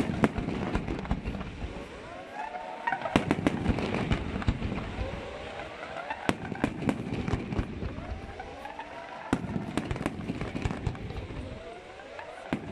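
Fireworks display: a sharp bang about every three seconds. Between the bangs, whistling shells glide up and down in pitch over a steady crackle.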